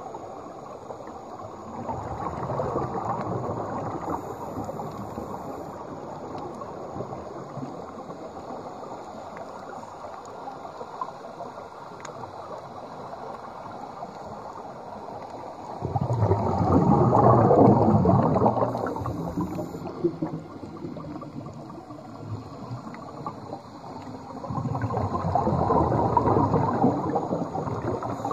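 Exhaled bubbles from a scuba regulator gurgling underwater in three long surges, about two, sixteen and twenty-five seconds in, the middle one loudest, over a steady underwater hiss.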